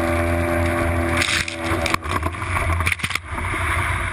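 Small boat's outboard motor running at speed, with heavy wind rumble on the microphone and water rushing past the hull. The motor's steady hum fades under the wind about two seconds in, and a few sharp knocks follow.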